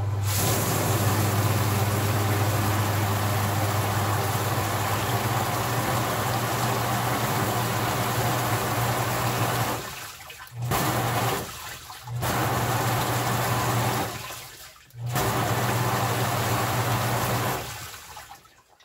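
Submersible 1/4 HP utility pump running with a steady hum, forcing water through the pen-tube nozzles of a homemade PVC bottle-washer manifold so that it sprays against the inside of a plastic tote. The sound drops out briefly three times in the second half and fades away near the end.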